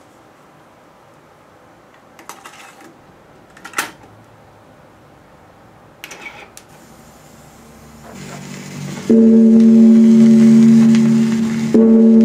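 Yamaha KX-530 cassette deck: a few mechanical clicks as a cassette goes in and a transport button is pressed. Then tape hiss, and about nine seconds in music from the tape starts playing loudly, with steady ringing tones and a short dip near the end.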